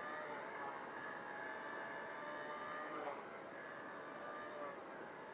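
XK K100 micro helicopter's brushed electric motors and rotors whining steadily in flight, several tones at once. The pitch dips briefly about three seconds in, then recovers.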